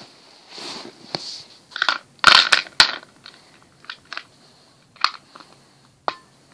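Polymer clay charms clattering against each other and a plastic storage box as the box is handled: a string of irregular sharp clicks and knocks, loudest two to three seconds in.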